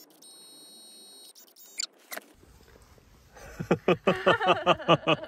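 A person bursting into quick, rhythmic, high-pitched laughter about three seconds in. Before it comes the faint high whine and short motor sweeps of a Kodak Mini 2 Retro pocket photo printer feeding its print.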